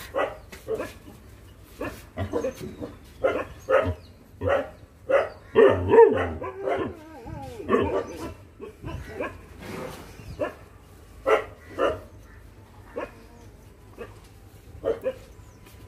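Newborn Rajapalayam puppies crying: many short, high yelps and squeals at irregular intervals, with a run of wavering whines about six seconds in, growing sparser toward the end.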